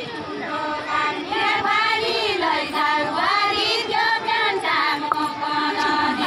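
Women's voices singing a Deuda folk song together, with some long held notes.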